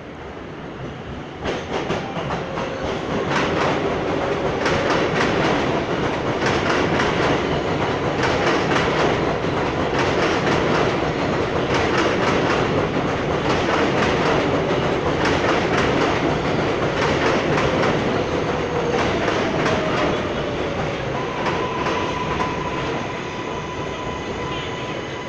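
An R188 subway train on the elevated 7 line pulling alongside the platform. Its wheels clack over the rail joints under a motor whine that falls in pitch as it slows, and a steady high wheel squeal sets in near the end as it brakes.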